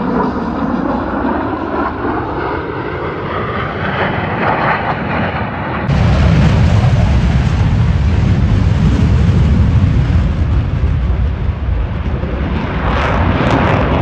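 Loud jet noise from Blue Angels F/A-18 Super Hornets flying a low pass, a continuous roar that suddenly grows louder and deeper about six seconds in as the jets come close.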